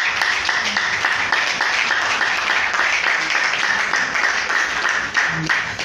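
Audience applauding, many hands clapping densely, easing off near the end.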